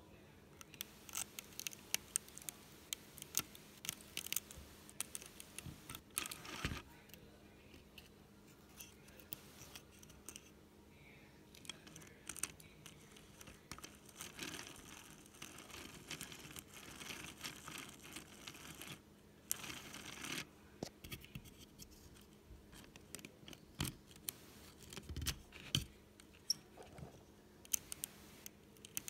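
Hand-cranked LEGO shredder chewing through a brown sheet: irregular clicks and snaps from its plastic gears and cutter teeth, with several stretches of tearing and crinkling as the sheet is ripped apart.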